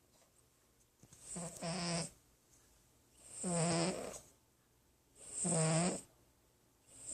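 A sleeping cat snoring: about one snore every two seconds, each lasting about a second, with quiet breaths in between. Three full snores, and a fourth begins near the end.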